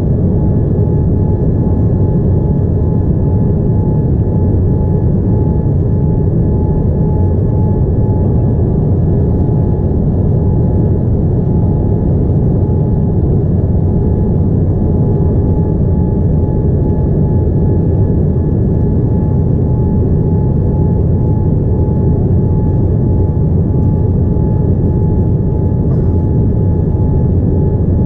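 Steady cabin noise inside a Boeing 787-9 airliner: an even engine and airflow rumble with a thin, steady whine on top, unchanging throughout.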